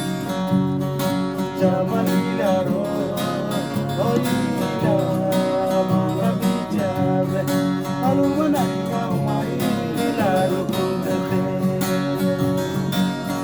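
String band music: strummed acoustic guitars keeping a steady rhythm, with a melody line weaving over them.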